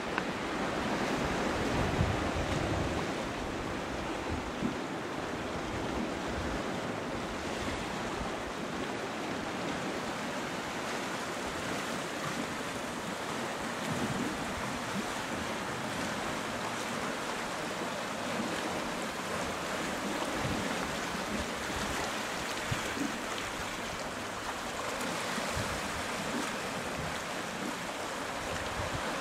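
Sea surf washing and breaking against shoreline rocks, a steady rush of water, with wind gusting on the microphone in low rumbles.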